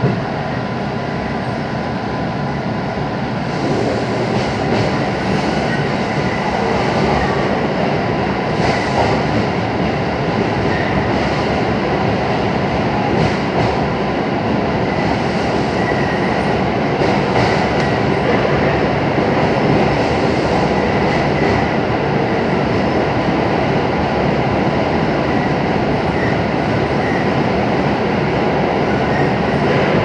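A JR 221-series electric train running at reduced speed, heard from inside the car: steady rumble and rail noise with a thin steady whine. It gets louder about three and a half seconds in as the train runs into a tunnel.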